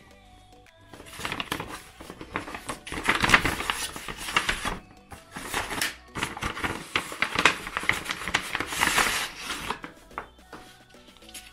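Kraft paper envelope and paper sachets being handled, rustling and crinkling in irregular bursts, loudest a few seconds in and again later, over soft background music.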